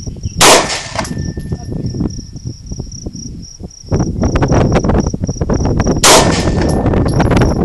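Two shots from a 9mm Ruger P95 pistol, about five and a half seconds apart, each followed by a faint ringing note. Insects chirp steadily in the background, and a low rushing noise sets in about four seconds in.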